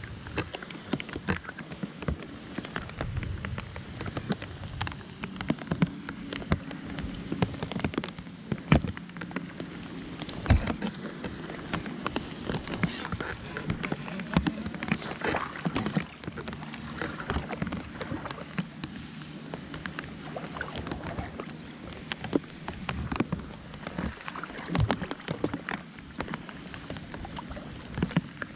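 Rain falling, with many separate drops ticking sharply and irregularly close to the microphone over a steady hiss.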